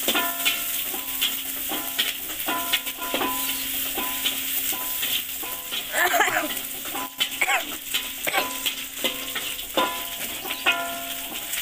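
Metal spatula stirring and scraping in a hot wok, with a steady oil sizzle and frequent clicks of the spatula against the pan. About halfway through there is a short wavering sound, the loudest moment.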